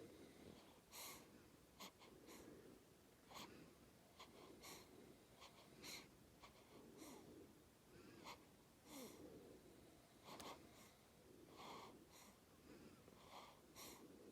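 Faint snoring: wheezy, hissy breathing from a sleeper, with short puffs about once a second at an uneven pace.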